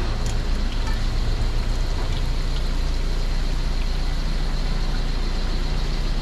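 An engine running at idle: a steady low rumble.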